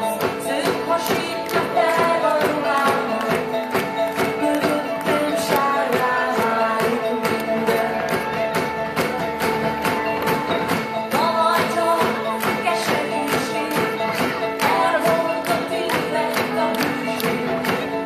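Live band with a string section playing a pop song to a steady beat, guitars and strings under a sung melody.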